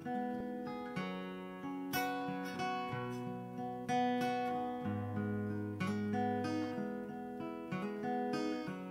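Background music: an acoustic guitar strumming chords, struck roughly once a second and left to ring, with no singing yet.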